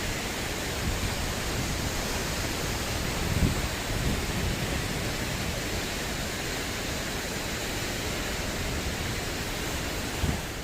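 A high mountain waterfall rushing: a steady, even roar of falling water with a low rumble underneath.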